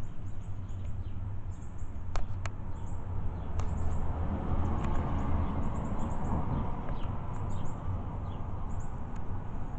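Small birds chirping in quick, high, repeated calls over a steady low background rumble, with a few sharp clicks about two and three and a half seconds in.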